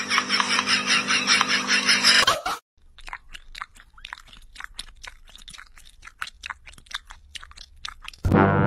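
For about the first two and a half seconds, a loud, rapid run of pulses; then, after a cut, faint irregular clicking, the claws of a tegu lizard tapping on a smooth hard floor as it walks.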